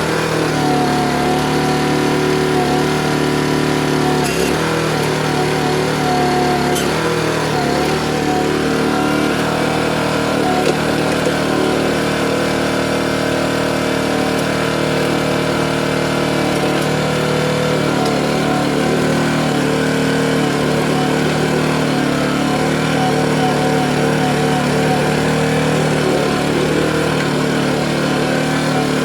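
Small gasoline engine of a Harbor Freight trencher/backhoe running steadily while it digs a post hole. Its pitch wavers slightly, and a couple of brief knocks come about four and seven seconds in.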